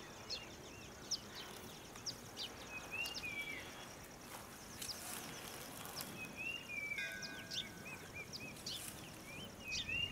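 Faint rural outdoor ambience: scattered short bird chirps and curved whistled calls, over a steady high insect trill.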